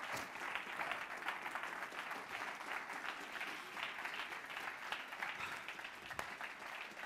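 Audience applauding steadily, a dense crackle of many hands clapping.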